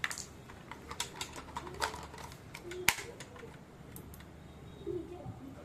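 Scattered light clicks and taps from the unboxed printer and its accessories being handled, with the sharpest knock about three seconds in.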